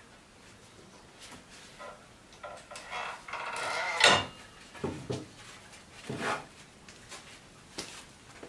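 Handling sounds: a short sliding scrape ending in a sharp knock about four seconds in, with a few softer knocks and clicks around it.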